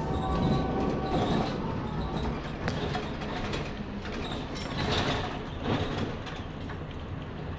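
Inside a 1998 Jelcz 120M/3 city bus on the move: its WSK Mielec diesel engine runs steadily, with road noise and scattered clicks and rattles from the body and fittings.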